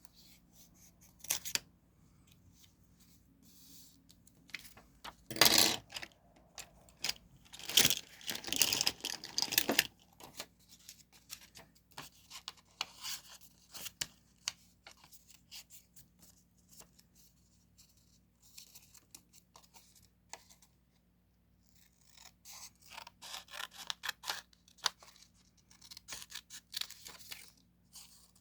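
Paper crafting sounds for journal decorating: sheets, stickers and tape handled, torn and cut with scissors, with small clicks and taps between. A loud rustle comes about five seconds in, a longer bout of tearing and rustling a few seconds later, and quick small strokes near the end.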